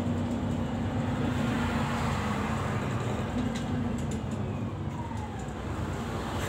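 City bus engine and drivetrain running, with road noise, heard from inside the passenger cabin. A short falling whine comes about five seconds in as the bus slows behind the vehicle ahead.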